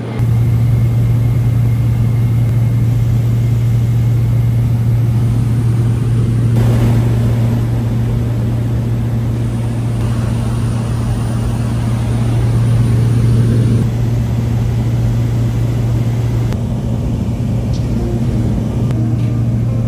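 Steady, loud drone of the Cessna 208B Grand Caravan's single turboprop engine and propeller, heard inside the passenger cabin in flight.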